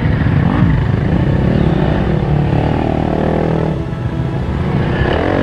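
Dirt bike engines running and revving, the pitch rising and falling as the bikes ride round a dirt track.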